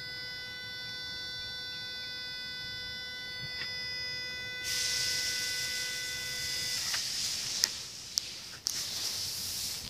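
Throttle body of an Audi A4 B5's 1.6 ADP engine giving a steady high-pitched buzzing whine with the key turned, a sound that has appeared since the throttle body was cleaned. A hiss comes in about halfway, the whine cuts off about seven seconds in, and a few sharp clicks follow.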